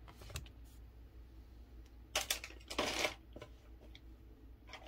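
Faint handling noise: a few scattered clicks and short rustles of small objects being picked up and moved, the loudest a little past halfway, over a steady low hum.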